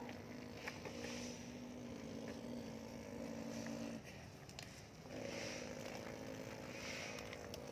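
Steady whine of a remote-control excavator's small electric motors, its pitch stepping up and down as it works. It drops out briefly about four seconds in, then starts again.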